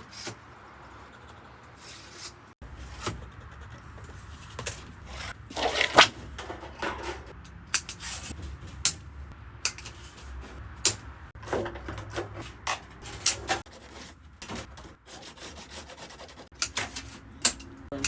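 Sheet metal being handled and worked into ductwork: irregular knocks, clicks and scraping of metal, the loudest knock about six seconds in, over a low steady hum that starts about two and a half seconds in.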